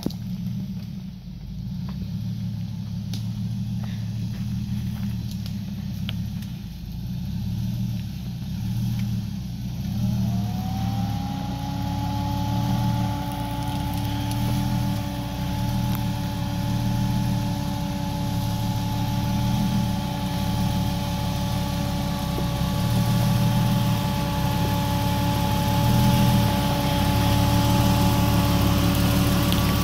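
Jeep Wrangler engine running low and slow as it crawls over rocks, a steady rumble with an uneven pulse. About ten seconds in, a steady whine rises into place and holds, and the engine grows louder as the Jeep comes closer.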